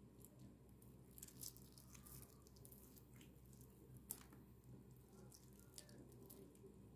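Faint sounds of boiled chicken legs being pulled apart by hand, with scattered small soft clicks as the meat is torn from the bone and dropped into a bowl.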